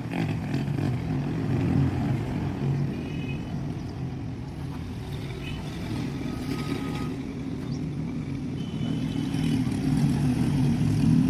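An engine running steadily, with a few short high chirps over it.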